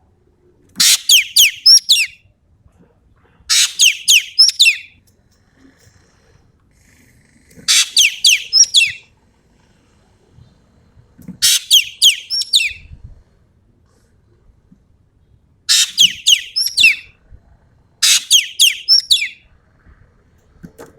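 Sumatran common green magpie (ekek keling) singing in its "tembakan" call style: six bursts of quick high whistled notes, each note sliding down in pitch, repeated every three to four seconds.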